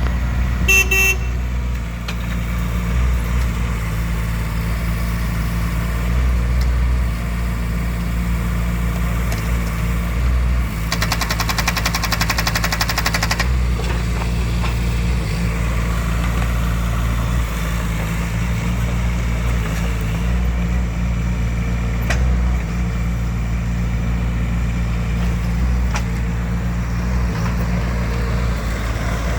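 CX12-6 mini excavator's diesel engine running steadily at idle. A short beep sounds under a second in, and a rapid buzzing rattle joins for a couple of seconds about eleven seconds in.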